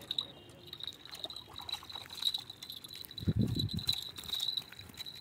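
A small fish, just reeled in and landed, flopping and thudding on dry ground about three seconds in, with scattered clicks around it. A steady high-pitched insect drone runs underneath.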